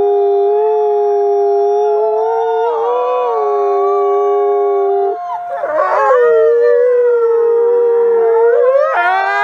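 A pack of wolves howling together, several long howls at different pitches overlapping. About five seconds in the lowest howl stops and fresh howls begin, rising and falling in pitch.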